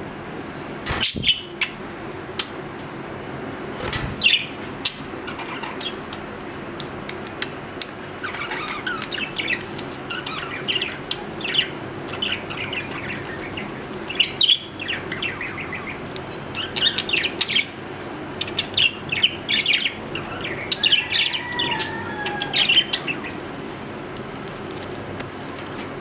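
Budgerigar chattering: a long run of quick, high chirps and warbles through the middle, with a few sliding notes. Two sharp clicks come before it, and a steady low hum runs underneath.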